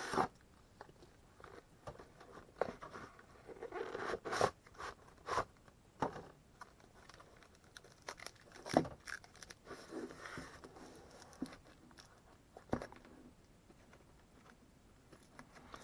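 A cardboard shipping package being opened by hand: irregular scrapes, rips and crinkles of cardboard and packing, with scattered small knocks.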